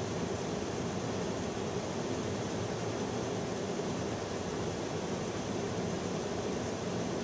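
Steady rushing airflow and engine noise of a KC-10 Extender tanker in flight, heard from inside the aircraft while its refueling boom is connected to a receiving jet.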